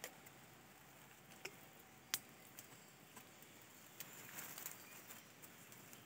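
Near silence, with a few faint sharp ticks and a soft rustle about four seconds in, from hands handling the plastic grafting tape wrapped around a grafted chestnut stem.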